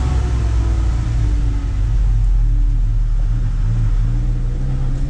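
Truck's diesel engine running at low speed, heard inside the cab: a steady low rumble whose note rises and falls a little as the truck creeps forward.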